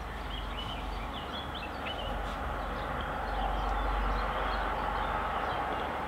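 Open-air countryside ambience: a steady rush that swells around the middle and eases off again, with a low rumble under it, and small birds chirping faintly through the first few seconds.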